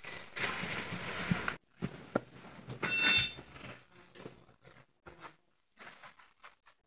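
Cloth rustling and handling noises as a sarong is pulled on: a soft rustle for the first second and a half, a couple of light knocks, and a brief louder scrape of fabric about three seconds in, then only faint clicks.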